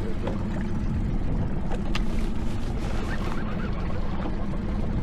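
Small fishing boat's engine running steadily, with a single sharp click about two seconds in.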